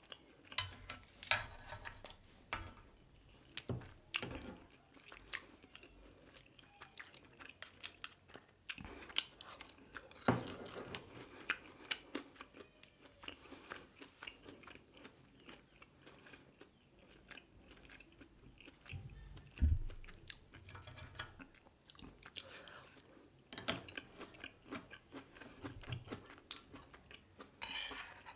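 Close-up chewing and mouth sounds of someone eating grilled pork sekuwa with rice: irregular wet smacks and small crunches, some bites louder than others.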